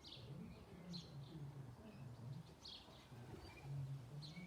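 Faint, scattered short bird chirps, a handful spread across a few seconds, over a low background rumble.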